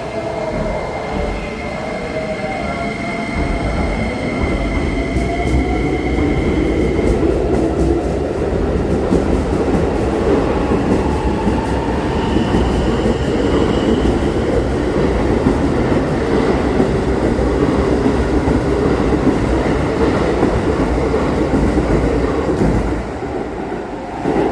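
A 1000-series electric train running on rails: a steady rumble of wheels and running gear that builds over the first few seconds, holds, and drops away about 23 seconds in. A thin high tone sounds for the first several seconds, and another comes briefly in the middle.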